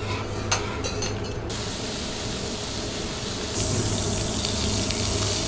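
Food sizzling on a steel teppanyaki griddle: a steady hiss that gets louder about three and a half seconds in. A couple of clinks of tableware come near the start.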